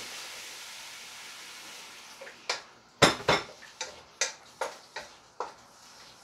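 Meat frying in an oiled pan, its sizzle fading over the first couple of seconds. Then a cooking utensil clanks against the pan as the meat is stirred: one heavy clank about three seconds in, then lighter knocks about two to three a second.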